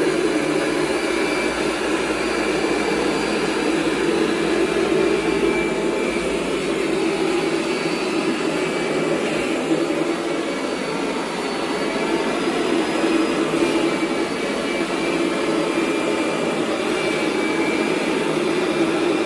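Kirby G5 upright vacuum cleaner's motor running steadily while powering the carpet shampoo system, with only slight rises and falls in level.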